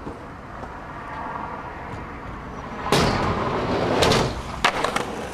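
Skateboard wheels rolling on a ramp: a steady rumble that swells loud about three seconds in, then a few sharp clacks of the board near the end.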